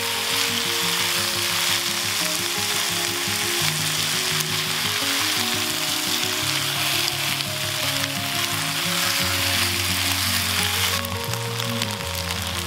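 Sliced potatoes and minced meat sizzling in oil in a nonstick frying pan as they are stir-fried and turned with a silicone spatula. The sizzle is a steady hiss throughout.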